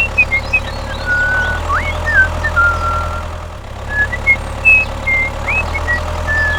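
A small engine idling steadily with an even, fast pulse. Short, high chirps that glide up and down in pitch are scattered over it.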